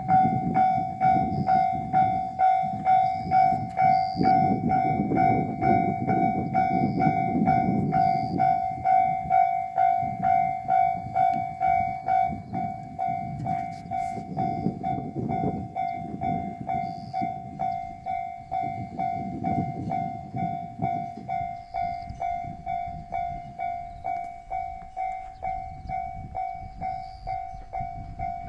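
Japanese level-crossing warning bell ringing steadily at about two strikes a second. A diesel train's low rumble and wheel noise swell and fade several times beneath it, louder in the first half.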